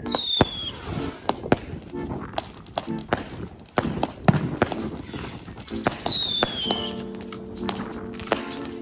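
Fireworks and firecrackers going off: irregular sharp bangs and crackles, with two short falling whistles, one right at the start and one about six seconds in. Background music comes in near the end.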